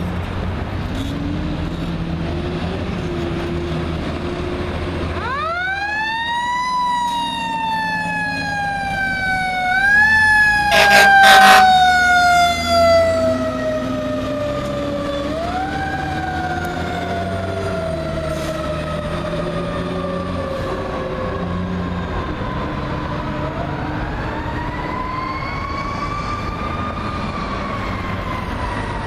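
Fire engine's Federal Q mechanical siren spinning up to a high wail about five seconds in, then coasting down slowly and being wound back up several times. A few short, loud air horn blasts come at the loudest point, as the truck passes close. A heavy truck engine and traffic rumble run underneath.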